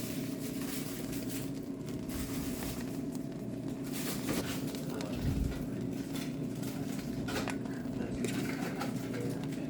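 Electric cooker running with a steady motor hum while rice is stirred and fried in its pot, with irregular light scraping and clinking.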